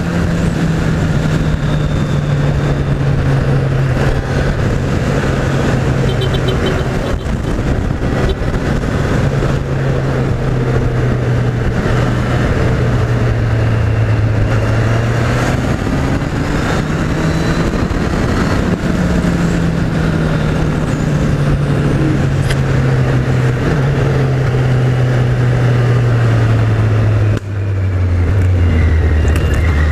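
Kawasaki Z800's inline-four engine on its stock exhaust, running while the bike is ridden, with wind noise over it. The engine note rises and falls slowly with the throttle. About 27 seconds in there is a brief dip, and then the note settles lower.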